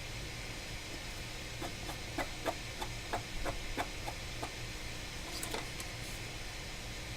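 An X-Acto knife blade scraping and picking at the underfill around the TriStar chip on an iPhone 6 Plus logic board: a quick irregular run of about ten small scratchy clicks, then one more near the end, over a steady hiss.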